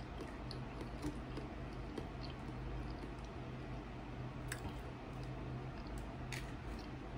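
Quiet close-up chewing of a mouthful of food, with a few faint sharp clicks, over a steady low hum.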